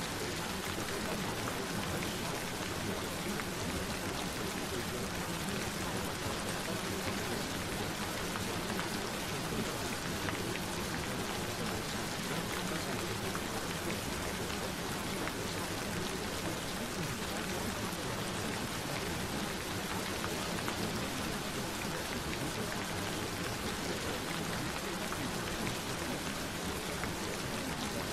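Gentle rain falling steadily, an even hiss of drops with no let-up.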